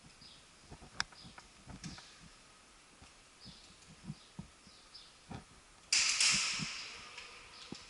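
Irregular soft knocks and thumps with faint high chirps, then a sudden loud rustling hiss about six seconds in that fades over about two seconds.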